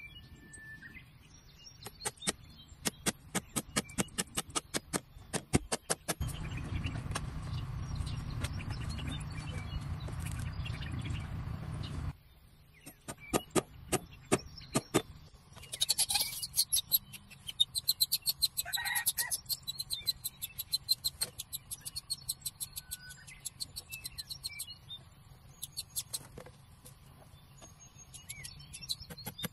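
Hammer tapping small nails through split-bamboo slats into a bamboo frame: runs of sharp taps, several a second, with short pauses between runs. A steady low rumble runs underneath from about six to twelve seconds in.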